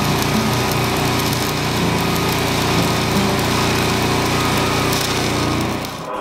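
Electric arc welding on steel: a steady, dense crackling hiss, with a low drone under it. It cuts off about six seconds in.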